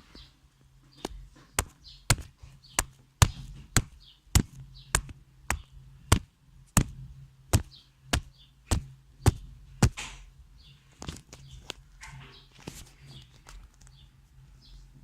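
Sharp clicks repeating at an even pace, a little under two a second, over a steady low hum; after about ten seconds they fade into fainter, scattered sounds.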